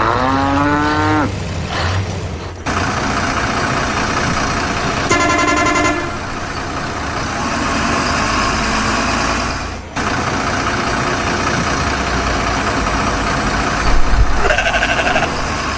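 Truck engines and road traffic running steadily, with horns honking: a tone rising in pitch at the start, a steady horn toot lasting about a second about five seconds in, and a shorter, higher honk near the end.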